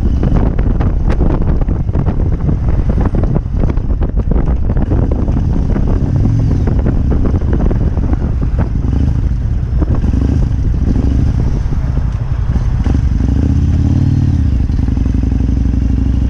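Kawasaki Vulcan 1600 Classic's V-twin engine running under way, with wind buffeting the microphone. The engine note shifts in pitch about three-quarters of the way through.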